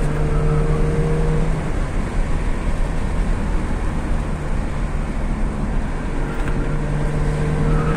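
Hyundai HB20's engine and road and tyre noise heard from inside the cabin while driving. A steady engine hum stands out at the start, sinks into the road noise, and comes back from about six seconds in.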